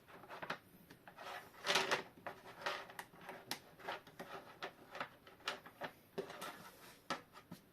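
Cable ties being pulled tighter by hand around a coiled steel clock mainspring: irregular clicks and scrapes, with a louder scrape about two seconds in.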